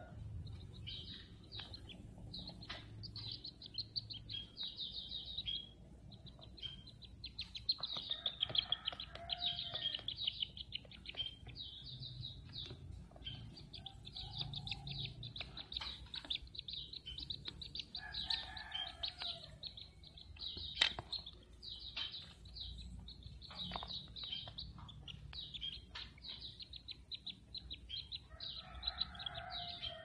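Kingfisher nestlings begging for food: a high, rapid chittering in repeated runs of a few seconds, with scattered clicks and knocks.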